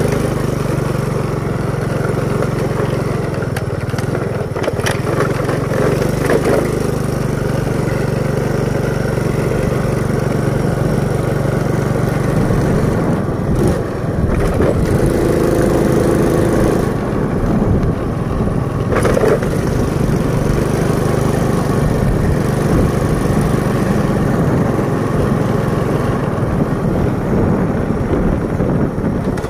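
Motorcycle engine running steadily while riding, with wind and road noise; a brief higher-pitched tone comes in about halfway through.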